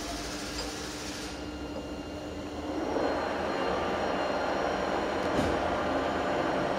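Steady mechanical hum of a CNC lathe at idle, its spindle stopped, growing louder about three seconds in.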